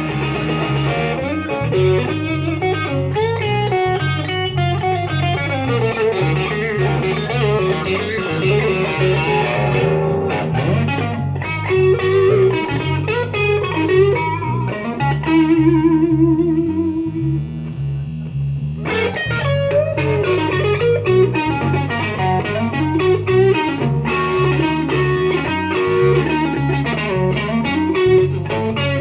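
Live blues-rock instrumental on electric guitar and electric bass: the bass plays a repeating riff while the guitar plays lead lines over it. Around the middle the guitar holds a wavering note and the upper sound thins out for a few seconds before the lead picks up again.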